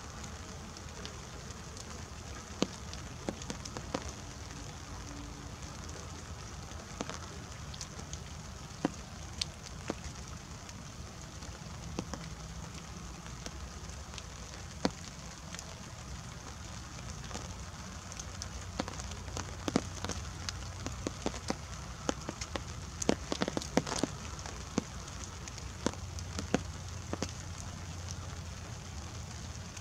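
Light rain with scattered drops pattering irregularly. The drops come thicker for a few seconds past the middle, over a steady low rumble.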